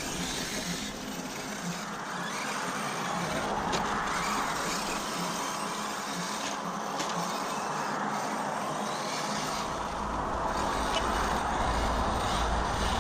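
Arrma Mojave 6S radio-controlled car with a brushless motor driving on a dirt track, its motor and drivetrain running with tyre and gravel noise. A low rumble joins about nine or ten seconds in.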